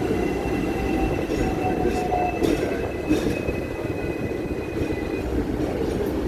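Hong Kong double-decker tram running on its rails with a steady rumble, and a high wheel squeal that stops about five seconds in. A few clicks from the wheels on the track near the middle.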